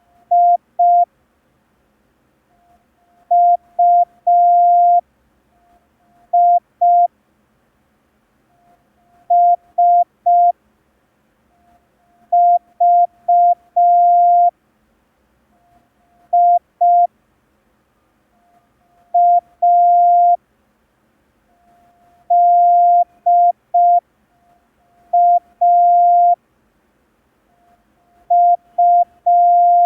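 Morse code practice tone: a single steady-pitched beep keyed into short dits and longer dahs. The beeps come in letter groups, about one letter every three seconds with silent gaps between them, for copying by ear.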